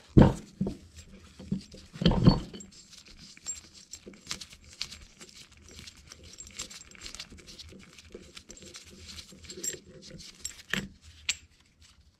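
Metal parts of an FMC John Bean R10 pump head being handled: a thump right at the start and another about two seconds in, then a long run of light clicks and rattles as the cast-iron head and its steel plate are turned over in gloved hands.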